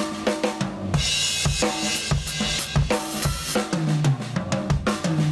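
Acoustic drum kit played hard: rapid snare and tom strokes over kick drum beats, with a cymbal crashing and ringing from about a second in until past the middle.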